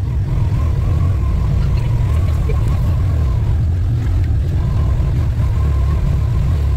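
Engine of an off-road utility vehicle running as it drives along a rough dirt trail: a steady low rumble, with a faint thin whine above it that drops out briefly midway.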